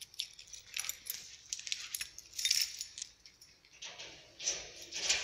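Irregular rustling and short light clicks: handling noise of a hand-held camera being moved about.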